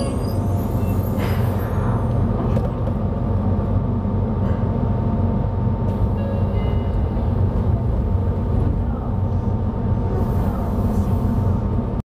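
Inside a Yokohama Municipal Subway 3000A car: a steady low rumble of the train running, with a faint constant hum. It comes just as the falling whine of the Mitsubishi GTO-VVVF inverter, which slides down before it, cuts out, in the low-speed end of braking.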